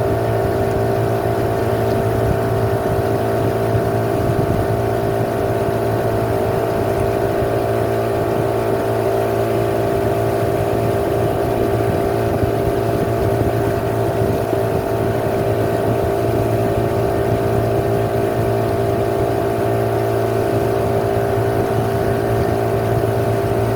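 Motorboat engine running at a steady speed: an even drone that holds the same pitch throughout, with no revving.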